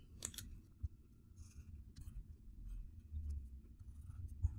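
A felt-tip permanent marker drawing lines on paper: faint, scratchy strokes of the tip across the sheet.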